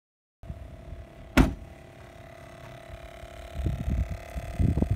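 Loaded fishing-gear wagon being handled and moved: a sharp knock about a second and a half in over a steady hum, then irregular low thumps and bumps near the end.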